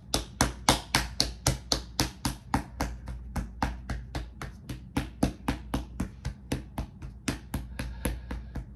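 Rapid, even light tapping, about five or six taps a second, over a faint steady low hum.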